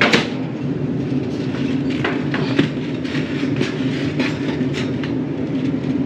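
Steady low hum of a running air conditioner, with a few light knocks and clatters as an air filter is handled and set down, the sharpest right at the start.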